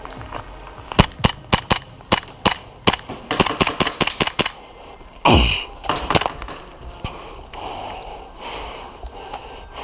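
Airsoft pistol firing a string of sharp shots in quick succession, densest in a rapid flurry just before the middle. About five seconds in comes a single loud sound that falls steeply in pitch, and then two more shots.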